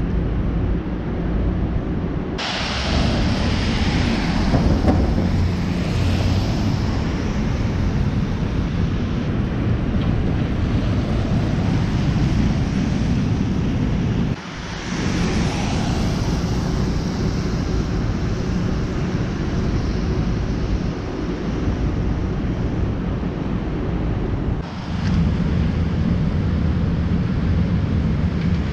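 Steady outdoor city-street noise on a wet night: a low rumble with a hiss over it, likely traffic and wind on the microphone. It changes abruptly about 2 seconds in, dips briefly about 14 seconds in, and shifts again near 25 seconds.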